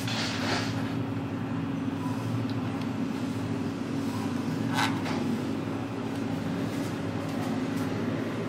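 Steady low machine hum with several fixed low tones, and a light knock about five seconds in as the glass serving bowl is shifted on its tray.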